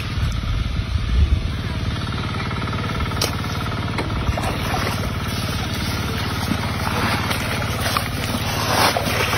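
Small engine-driven water pump running steadily with an even hum while it draws water out of a pond. Water splashes as fish thrash, most of all near the end.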